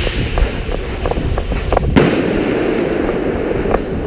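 Airsoft gunfire: a string of sharp, irregular pops, with one louder crack about two seconds in.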